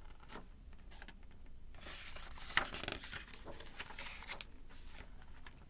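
A hardcover picture book's paper page being turned: rustling and brushing, loudest about two to four and a half seconds in, with a few small handling clicks.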